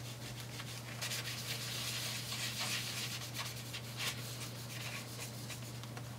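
Blue paper towel damp with isopropyl alcohol rubbing back and forth on a laptop's copper heatsink, wiping off old thermal paste, in irregular scrubbing strokes. A steady low hum lies underneath.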